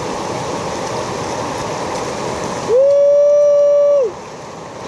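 Rushing water of river rapids. A little under three seconds in, a loud, steady, high tone cuts in for about a second and a half, gliding up at the start and down at the end, and the water sound drops away beneath it.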